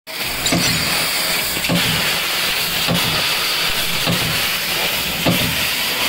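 Fiber laser tube cutting machine cutting a metal tube: a steady hiss from the cutting head's gas jet as sparks fly, with a short knock and low hum about every 1.2 seconds from the machine's moving parts.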